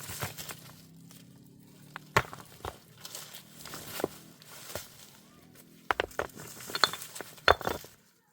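Scattered sharp knocks and crunching rustles at irregular intervals, the loudest about two seconds in, around six seconds in, and near the end.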